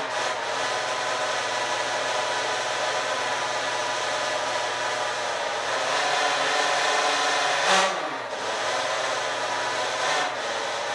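Taylor 50cc two-stroke engine of a 1/5-scale RC vehicle running steadily while warming up, its pitch dipping briefly about eight seconds in.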